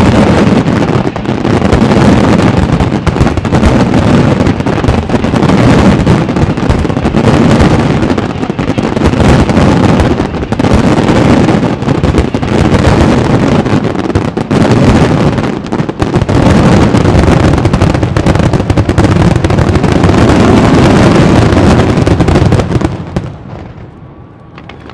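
Fireworks display barrage: aerial shells and comets bursting so quickly that the bangs merge into one continuous loud din, dropping off suddenly near the end.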